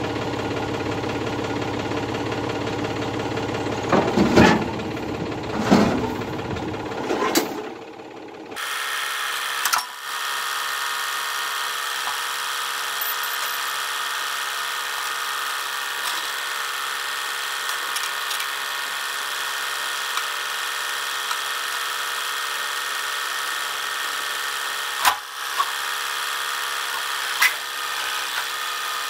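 Tractor engine running steadily at a fixed speed while its front loader works, with a few metal clanks about four to seven seconds in and a couple of short knocks near the end. The engine note changes abruptly about eight seconds in.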